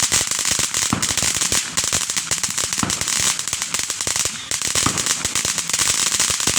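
Firecrackers going off in a rapid, continuous crackle of sharp pops, with no pause and no single big bang.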